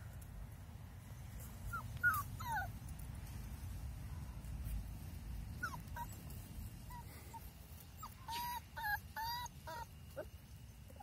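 Puppies giving short, high yelps as they play-fight, a few scattered calls early on and then a quick run of several louder yelps about eight seconds in.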